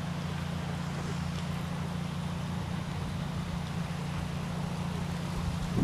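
Steady low mechanical hum over a rumbling background noise, unchanging throughout.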